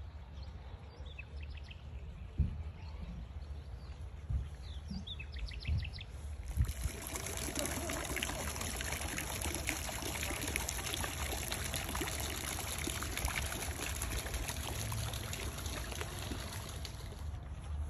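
A few bird chirps over a low rumble, then from about seven seconds in a steady trickling and splashing of water into an ornamental garden pool.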